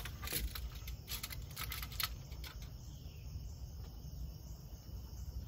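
Quiet outdoor background of insects chirping steadily, with a few light clicks and taps in the first couple of seconds as a tape measure and pencil are handled against a wooden stud.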